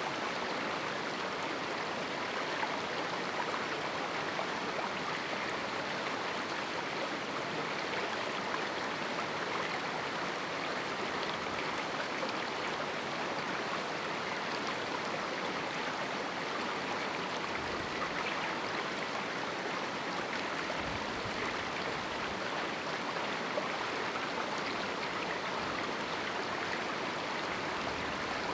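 Small canyon river running over rocks: a steady, even rushing of flowing water.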